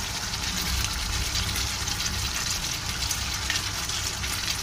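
Chicken and potato curry sizzling and simmering in a kadai: a steady hiss with a low rumble beneath.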